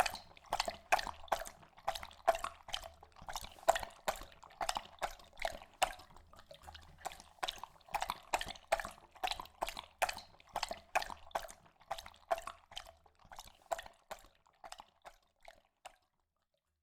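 Labrador lapping water with its tongue, a steady rhythm of wet laps about three a second that grows fainter and stops near the end.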